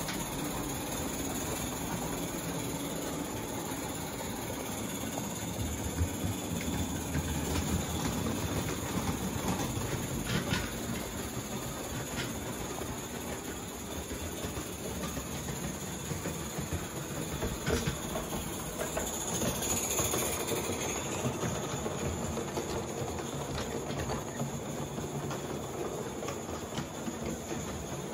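Accucraft Dolgoch live-steam model locomotive running along its track: a steady steam hiss with scattered light clicks of the wheels on the rails.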